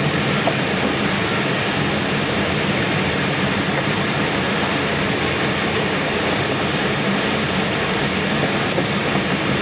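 Steady rush of air streaming past the canopy of a Schempp-Hirth Duo Discus glider in gliding flight, heard inside the cockpit.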